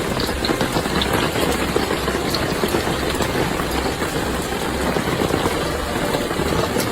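Heavy hail drumming steadily, a dense rattle of many small impacts over a low rumble.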